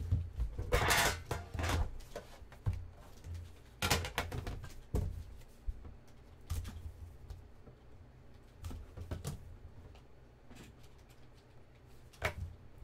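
Trading cards and their plastic holders being handled on a table: irregular rustles and clicks, the loudest at about one second in and near the end.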